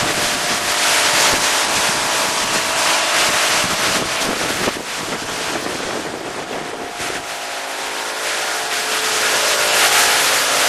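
Steady industrial plant background noise: a loud, even hiss with several steady machine hum tones under it, easing a little about halfway through.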